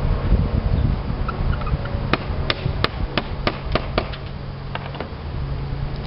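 Hammer tapping during a slate roof repair: a quick run of about eight sharp, light strikes, roughly four a second, then two fainter taps. A steady low rumble runs underneath.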